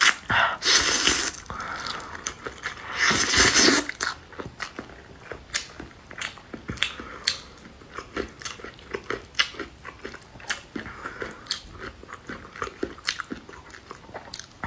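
A person slurping wide noodles off chopsticks twice, each slurp lasting about a second, and then chewing with many short clicks and smacks.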